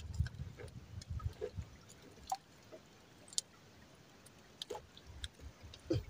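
Faint drips and small splashes of water with a few scattered light clicks and knocks, and some low knocking in the first second or so.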